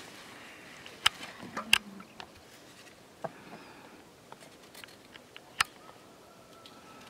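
Scattered sharp clicks and knocks of a knife and cut potato pieces against a metal bowl as potatoes are cut by hand, with a few louder clicks in the first two seconds and another just past the middle, and fainter ticks in between.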